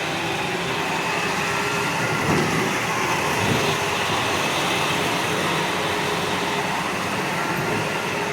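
Power Wheels Dodge fire truck ride-on toy driving, a steady, even mechanical running noise with faint steady tones in it.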